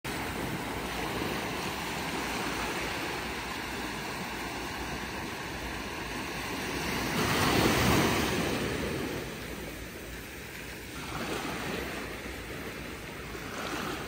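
Small ocean waves breaking and washing up on a sandy shore: a steady surf wash, with one louder wave breaking close by about halfway through and a softer one a few seconds later.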